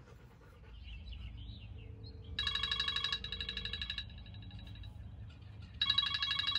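Smartphone ringing with a trilling, old-style telephone-bell ringtone: one ring of about a second and a half, a pause, then a second ring starting near the end.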